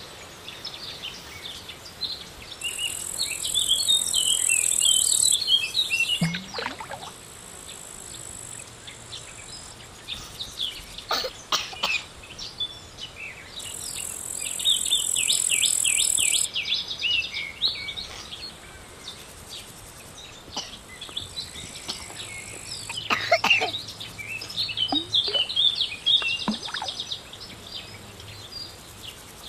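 Birds chirping and twittering, with a high, steady insect buzz that swells up twice for about three seconds each. A few sharp clicks are heard in the second half.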